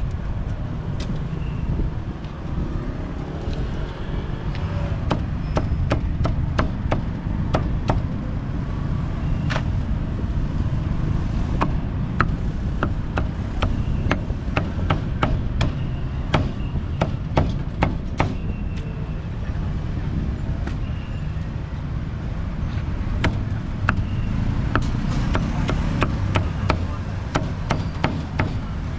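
A cleaver chopping meat in irregular runs of sharp strikes, over a low, steady rumble of street traffic.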